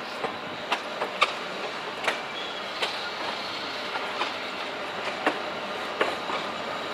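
Narrow-gauge toy train rolling slowly into a station, its wheels clacking over rail joints and points at irregular intervals over a steady running noise.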